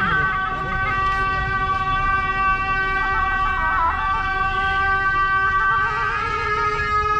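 Gyaling, the Tibetan ritual shawm, holding one long steady note with a brief wavering ornament that dips in pitch about halfway through.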